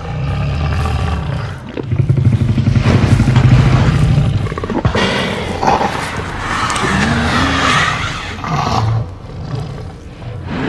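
Thanator creature sound effect, the designed voice of a large panther-like predator: a deep, rattling growl that swells into a roar, then higher snarling cries whose pitch bends up and down, with a last short snarl near the end.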